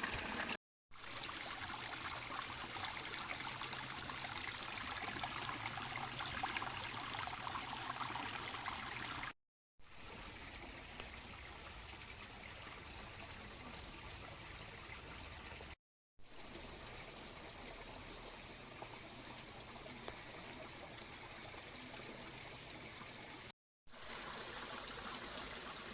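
A small river running: a steady rush of flowing water, fullest in the first stretch and softer afterwards, broken by three short gaps of silence.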